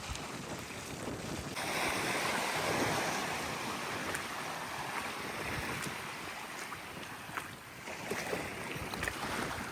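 Sea waves breaking and washing onto the shore, with wind buffeting the microphone; the surf swells louder about two seconds in and then eases.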